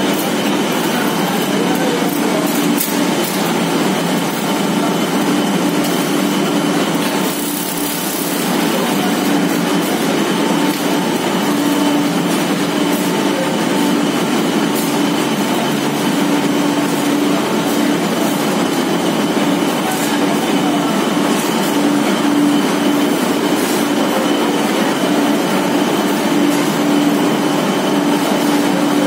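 Cotton waste recycling machinery running: electric motors, belt and gear drives and a blower fan make a steady mechanical drone with a constant hum.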